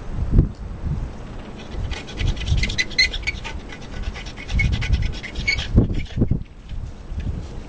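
A deer playing in water: irregular splashes and dull low thumps, with crackling spatter through the middle few seconds.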